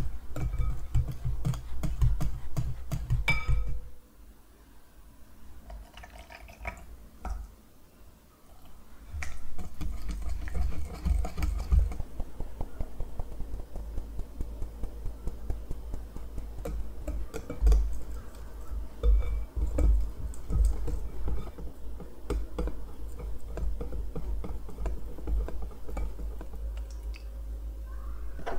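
Hand wire whisk beating egg yolks into cream-cheese batter in a glass bowl, quick strokes clicking against the glass. After a quieter stretch, flour is sifted over the batter and mixed in with a long run of steady, rhythmic strokes.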